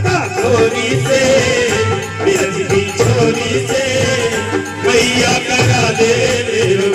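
Live Hindi devotional bhajan music through loudspeakers: singing into microphones over a steady beat.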